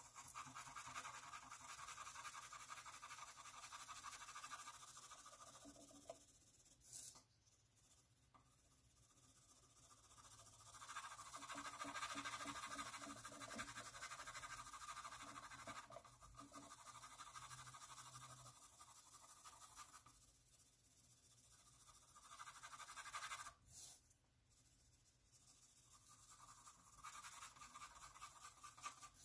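Faint scratching of a wooden graphite pencil shading on paper: quick back-and-forth hatching strokes, with a few brief pauses where the pencil lifts.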